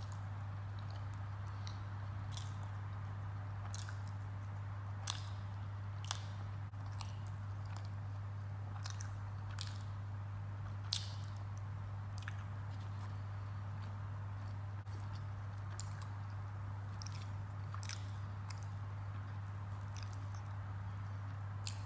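Close mouth sounds of someone eating poori with potato curry by hand: chewing with scattered wet clicks and smacks at irregular intervals. A steady low hum runs underneath throughout.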